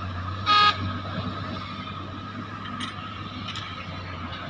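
Diesel engines of dump trucks and excavators running steadily, cut by one short, loud horn toot about half a second in.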